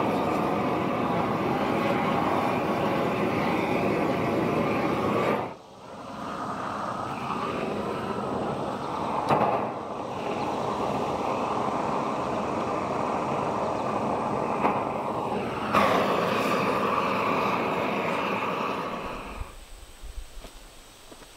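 Propane weed-burner torch burning with a steady rush of flame, charring the ends of log posts. The sound drops out briefly about five seconds in, comes back, and stops shortly before the end.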